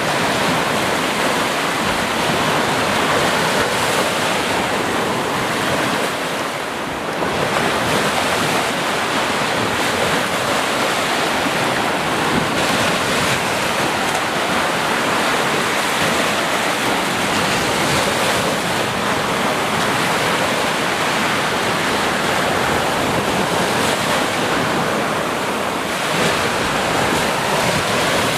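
Sea surf: waves washing continuously onto a shore in a dense, steady rush, easing briefly about a quarter of the way in.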